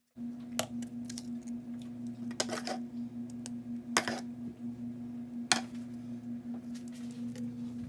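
A steady hum with a fast flutter, with several sharp clicks and taps over it, the loudest about four and five and a half seconds in, as toppings are put onto a tostada on a paper plate.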